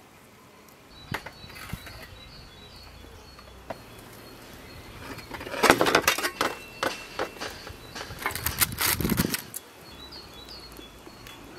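Birds chirping in the background, with loud bursts of scraping and rustling about halfway through and again near the end.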